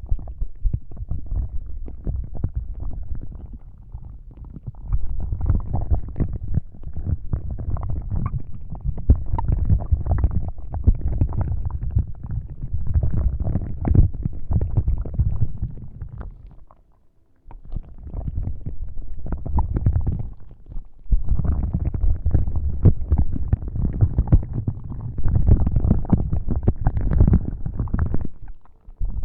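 Close-up scratching and rubbing of a prop directly against the microphone, in stretches of several seconds with two short breaks.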